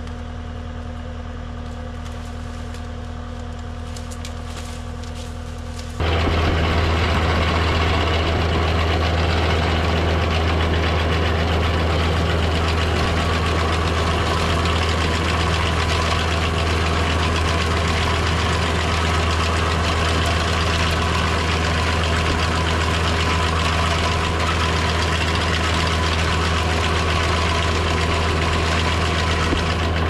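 Skid steer engine running steadily. For the first six seconds it is heard at a distance; from about six seconds in it is loud and close, as heard from the cab while it drives a hydraulic sickle bar mower laid flat through tall grass.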